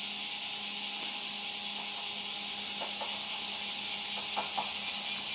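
Dense, steady hiss of a cicada chorus, pulsing finely, over the faint, steady hum of a Flower 2000 diesel railcar approaching at low speed.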